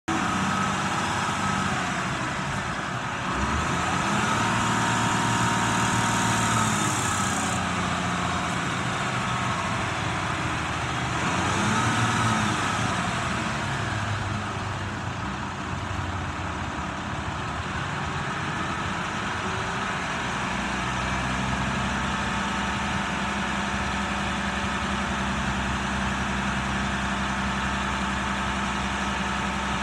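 1991 Ford L9000 dump truck's diesel engine running, revved up and back down twice in the first half, then settling into a steady idle while the hydraulic hoist tips the dump bed up.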